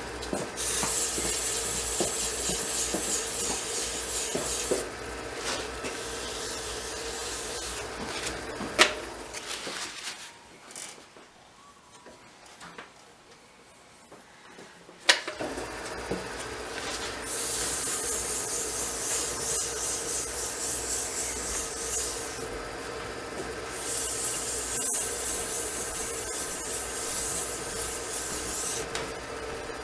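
Variable-speed wood lathe running while something is rubbed against the spinning burl pen blank, a steady hum under a rubbing hiss. About a third of the way in the lathe goes quiet for about five seconds, with a sharp click as it stops and another as it starts again.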